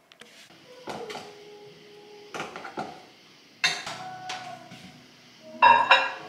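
Kitchen clatter: dishes and utensils knock and clink as a microwave is opened and loaded. There is a series of sharp knocks, several followed by a brief ring, and the loudest burst of clinks comes near the end.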